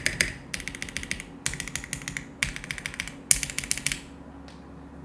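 Typing on a Mode Sonnet aluminium mechanical keyboard with Akko Jelly Black linear switches on a POM plate. Several quick bursts of keystrokes stop about four seconds in, followed by one last single click.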